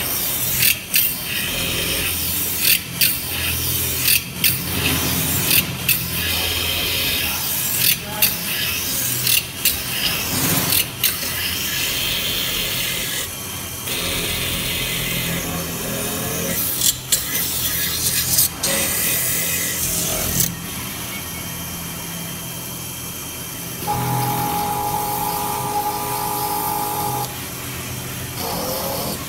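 CNC metal spinning lathe running: a steady machine hum with irregular sharp clanks of metal through the first two-thirds. It then runs quieter and steadier, with a whine of several tones for a few seconds near the end.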